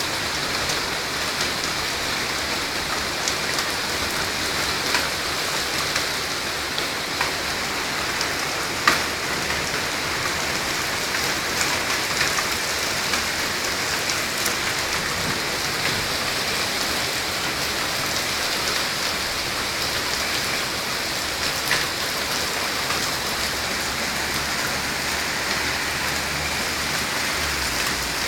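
Heavy rain falling steadily, with scattered sharp clicks of drops striking nearby, the loudest about nine seconds in.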